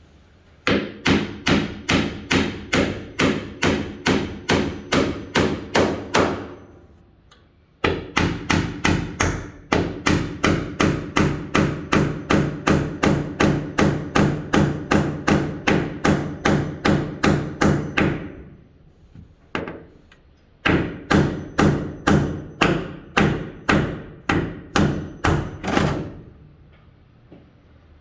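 Hammer driving nails into wood: three runs of quick, even blows, about three a second, each with a short ring, with brief pauses between the runs.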